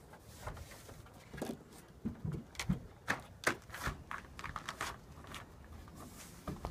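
Irregular knocks, taps and scrapes of hands and sock feet on the bolt-on holds and plywood panel of a wooden climbing wall as a climber moves across it, densest in the middle few seconds.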